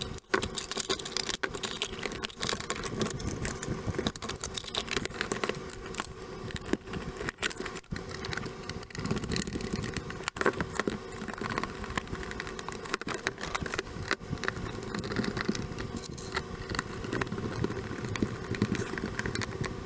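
Irregular clicks, taps and rattles of a black plastic project enclosure and its parts being handled and closed up, over a steady faint background hum.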